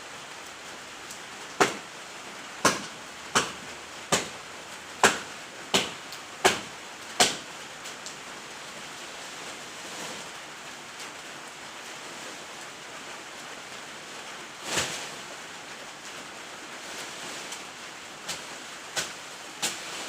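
Steady rain, with a run of about eight sharp knocks at an even pace in the first half, a single louder knock later, and a few fainter ones near the end.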